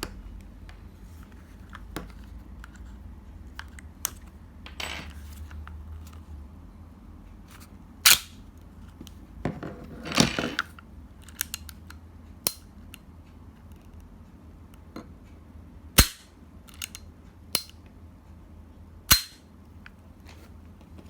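3D-printed Hi-Capa gas blowback airsoft pistol on a Tokyo Marui base firing several sharp single shots a few seconds apart, with smaller metallic clicks between them.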